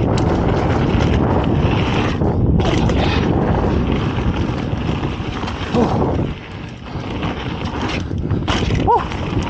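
Wind buffeting the camera microphone over the low rumble of a mountain bike rolling along a dirt trail, easing off briefly past the middle. Two short pitched sounds, rising and falling, come about six seconds in and again near the end.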